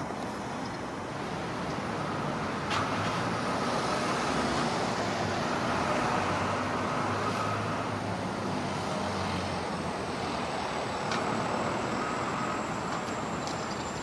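Steady road traffic noise, rising and falling as vehicles pass and loudest around the middle.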